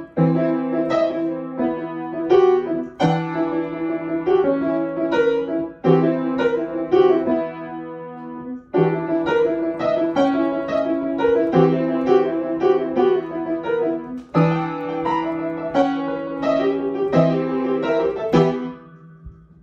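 Piano played at a quick tempo of 168 beats a minute, a steady stream of struck notes with short breaks, ending on a last strike that rings out and fades.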